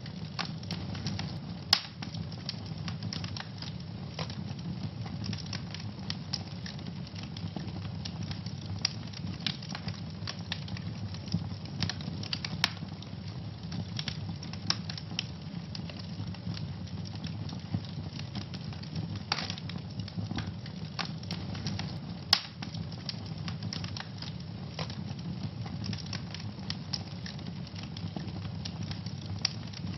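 Wood fire burning in a fireplace: a steady low rumble of flames with frequent irregular crackles and pops, a few sharper pops standing out.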